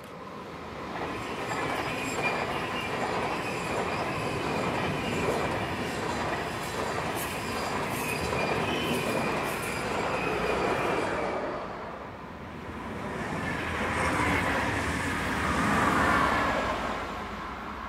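Swiss passenger train with white double-deck coaches passing at speed, a steady rush of wheels on rail with a high whine over it. The sound dips about twelve seconds in. A blue double-deck S-Bahn train then passes close by, growing louder to its peak near the end.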